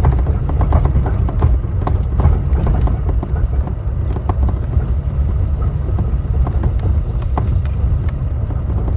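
Irregular clunks and knocks from under the steering wheel of a Toyota Tacoma driven over a rough road, over a steady low rumble of road and engine noise. The knocks come thickest in the first few seconds and more sparsely after.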